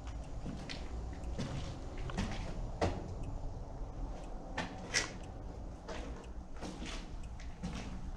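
Irregular knocks and gritty scrapes of a person's footsteps shuffling on a debris-strewn concrete floor. There is a sharper knock about five seconds in.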